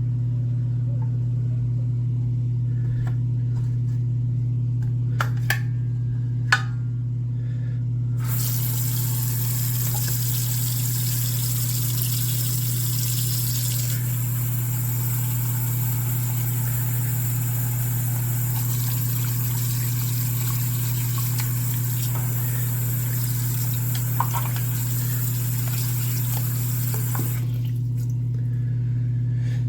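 Parts-washing machine, most likely an ultrasonic cleaner, switched on and running with a steady low buzzing hum. A loud hiss joins about eight seconds in and cuts off near the end, with a few light clicks along the way.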